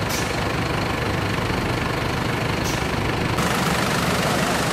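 An engine running steadily at idle, a low continuous rumble, with the background sound changing about three and a half seconds in.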